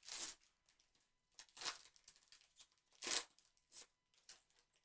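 Panini Chronicles football trading cards and pack wrapper handled by gloved hands: about five short, quiet papery rustles and tearing sounds.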